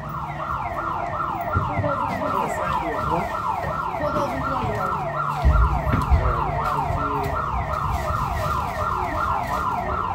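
Siren sound effect of quickly repeating falling whoops, about three or four a second, starting abruptly, over a low bass rumble with a thump about halfway through.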